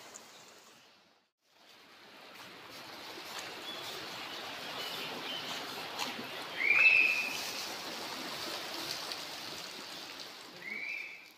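Water trickling and dripping off a rock face into a shallow stream, a steady hiss of running water that drops out briefly about a second in. A bird gives a short arching call twice over it, loudest about seven seconds in and again near the end.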